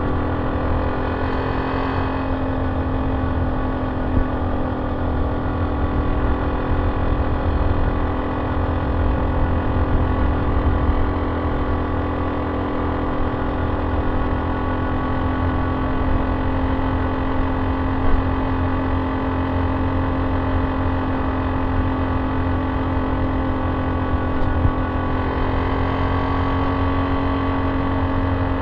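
Honda C70's small single-cylinder four-stroke engine running through an aftermarket banana-shaped ("pisang") exhaust while the bike cruises at a steady speed, with a low rush of wind beneath it. The exhaust note stays even, turning a little brighter near the end.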